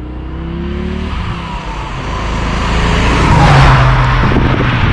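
A 1983 Audi Quattro with its turbocharged five-cylinder engine drives past at speed. Its engine and tyre noise swell to their loudest about three and a half seconds in as it passes, then ease off as it pulls away.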